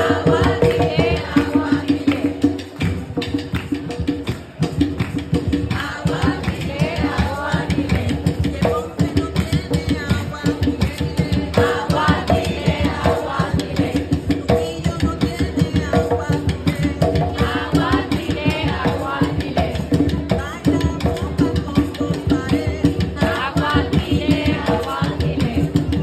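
Live Afro-Puerto Rican bomba music: hand-played barrel drums in a dense steady rhythm, sticks clacking on a wooden cuá and a rattle, with a woman singing short phrases that come back every few seconds.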